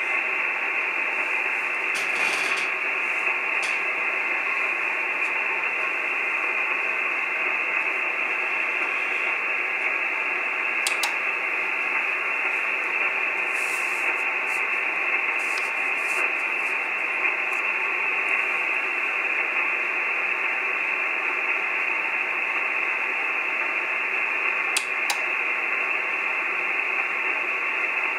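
Steady receiver hiss from an Icom IC-9700 transceiver tuned to the XW-2A satellite downlink, with no station heard on it. The hiss stops sharply at the top of the radio's narrow voice passband, and a few faint ticks come through it.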